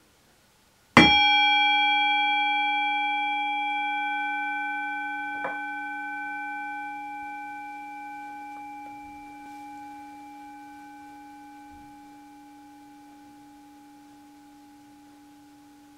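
Brass singing bowl struck once with a wooden mallet about a second in, ringing on with a long, slowly fading tone; the higher overtones die away first, leaving the low hum. A light tap about four seconds after the strike.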